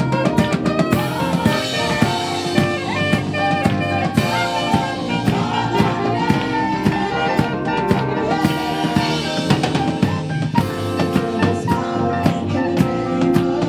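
Live gospel band playing, with a drum kit keeping a steady beat under held instrumental chords.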